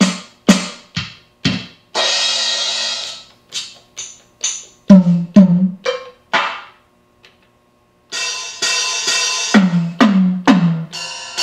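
LinnDrum drum machine's sampled drum voices triggered one at a time from its front-panel pads: a string of separate drum hits, low ones falling in pitch like toms, and a cymbal ringing out about 2 s in and again from about 8 s in. After the repair, all of the drum voices are sounding.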